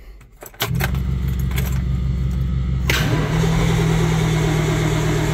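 Starter cranking a diesel engine that turns over with a regular pulsing beat but does not catch. The sound shifts to a steadier tone a little past halfway and keeps on turning over. The engine is heard from inside the cab, and the fuel system probably still has air in it after the new fuel line.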